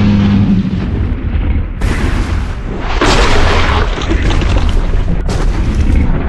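Dinosaur sound effects for a composited monster: a loud, deep rumble with booms, and bursts of harsh rushing noise that cut in about two, three and five seconds in.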